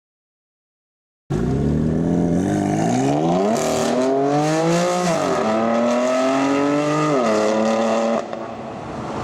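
Silence for about a second, then a Hamann-tuned BMW M4's twin-turbo straight-six with aftermarket exhaust accelerating hard. Its pitch rises through gears, with two sudden drops at the upshifts, and it drops in loudness near the end.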